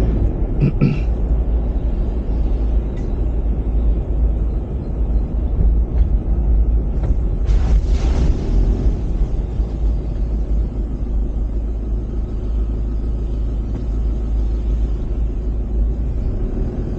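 Steady low rumble of a vehicle on the move, road and wind noise, with a brief rushing swell about seven and a half seconds in.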